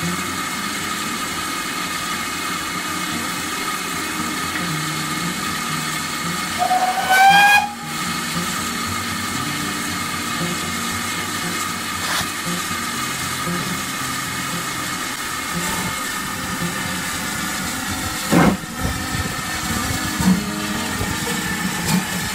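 GWR Manor-class 4-6-0 steam locomotive 7820 standing with a steady hiss of steam. About seven seconds in it gives one whistle blast, about a second long and rising in pitch. Near the end come a few sharp beats as it gets under way.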